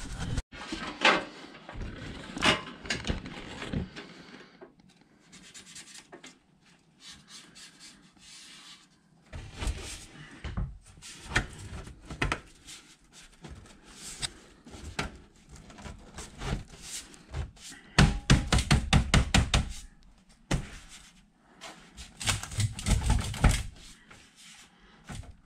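Black steel stove pipe and an adjustable elbow being handled and fitted together, with metal scraping and rubbing and irregular knocks. About three-quarters of the way in comes a fast run of rattling clicks.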